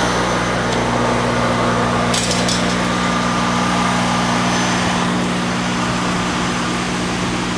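A steady low mechanical hum under a constant hiss, unchanging throughout, with a brief rattle about two seconds in.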